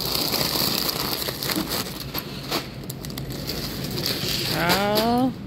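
Plastic potato-chip bags crinkling and crackling as they are handled and dropped into a shopping cart. A short rising voice sound comes near the end.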